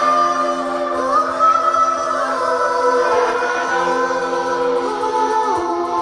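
A live band playing a song: a man singing long held notes that glide up and down over a steady sustained chord and electric guitar.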